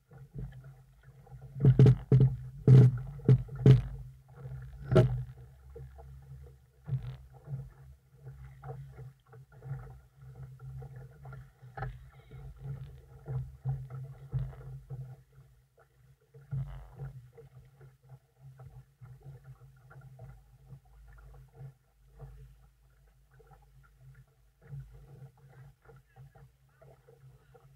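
Water sloshing and lapping against the hull of a small sailing dinghy under way. Four sharp knocks come between about two and five seconds in, then lighter taps and splashes.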